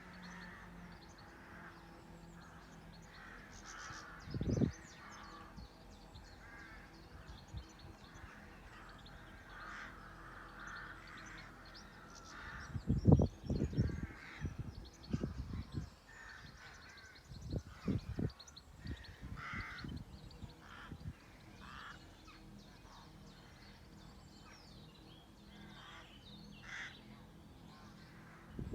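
Wild birds chirping and calling throughout, many short high calls overlapping. A few louder, brief low bursts break in, the loudest about halfway through, with a cluster of them near the middle.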